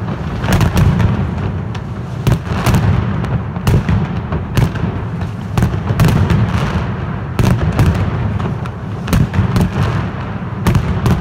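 Mascletà: masclet firecrackers going off in a dense, irregular barrage of very loud sharp bangs over a continuous low rumble.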